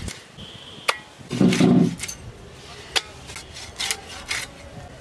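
Pangasius fish being cut on a boti, the curved blade of a floor-mounted cutter: scattered sharp knocks and scrapes of flesh and bone against the metal blade. About a second and a half in there is a brief, louder low-pitched sound.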